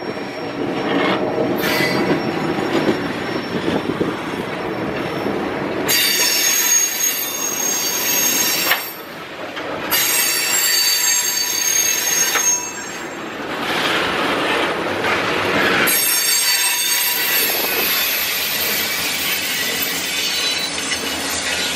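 Freight train cars rolling past with a low rumble, then steel wheels squealing high against the rails in long stretches that start about a quarter of the way in, break off briefly twice, and carry on to the end.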